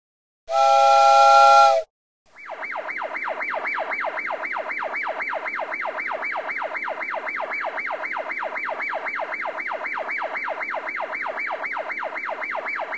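A brief held electronic tone, then, about two seconds in, a fast warbling siren sound effect that sweeps up and down in pitch about three to four times a second at a steady level.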